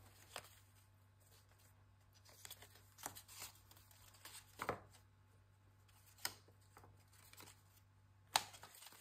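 Faint rustling and light taps of paper strips being handled and set down on a cutting mat, a few separate short sounds with the sharpest one near the end.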